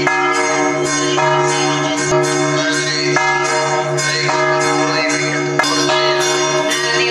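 Church bells in the tower ringing a festive peal, with strikes about twice a second and each stroke ringing on into the next, so the tones overlap.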